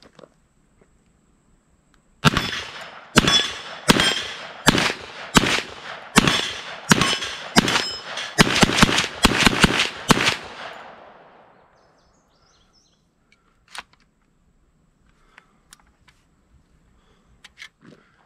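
TNW Aero Survival Rifle, a semi-automatic 10mm Auto carbine, fired in a string of about fifteen shots over some eight seconds, the shots coming faster near the end. The rifle cycles every round.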